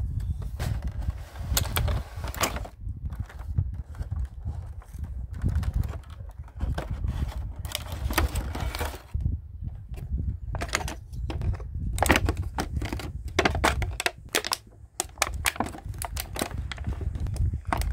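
Thin clear plastic blister packaging crinkling and crackling as it is handled, with irregular clicks and taps of small plastic toy pieces, over a low rumble of handling.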